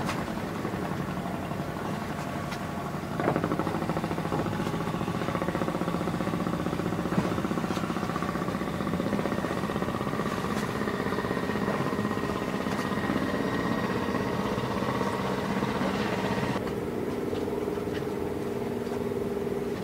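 Boat engines running steadily with a fast, even beat. The sound gets louder about three seconds in and shifts to a lower, steadier tone near the end.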